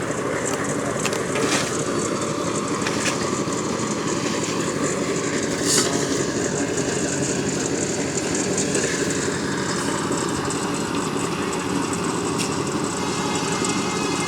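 Concrete mixer machine running with a steady mechanical drone, broken by a few sharp knocks, the loudest about six seconds in.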